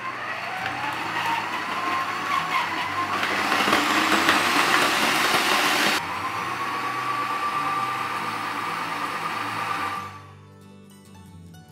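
Food processor motor running, mixing flour and dry ingredients into bun dough as warm water is added: a whine that rises in pitch as it spins up, runs steadily, and stops about ten seconds in.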